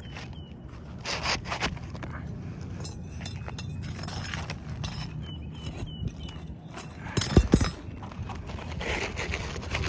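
Scraping and knocking from working on brittle asphalt roof shingles, with a couple of loud knocks about seven and a half seconds in. A few short high chirps come just before the six-second mark.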